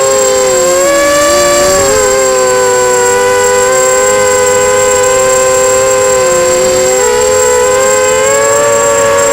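Brushless motors of a 250-size FPV racing quadcopter whining loudly, several motor tones sliding up and down together as the throttle changes, with a dip in pitch about a second in and another around seven seconds.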